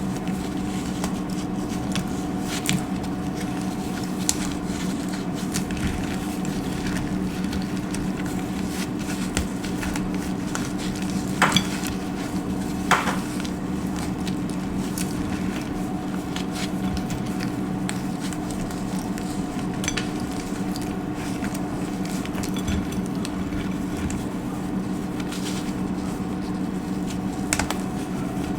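Dry soap being cut and crunched: a continuous run of small crackles and crisp snaps, with a couple of sharper, louder cracks about eleven and thirteen seconds in, over a steady low hum.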